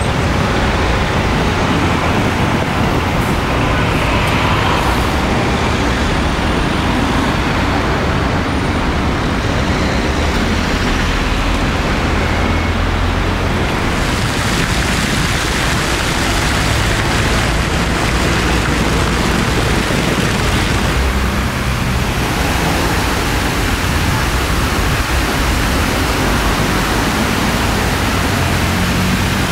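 Steady road traffic noise from cars and buses passing. About halfway through the hiss turns brighter as the rush of fountain water spray joins it.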